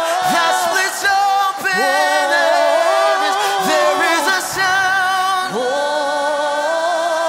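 A man's solo voice singing a gospel-style worship song live, sliding between notes in runs with a wavering vibrato on the held notes. A soft low note sounds under the voice a little after halfway.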